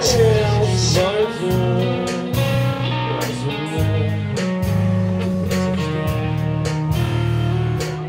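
Rock band music: a bass line that moves from note to note under strummed electric guitar, with a singing voice in about the first second.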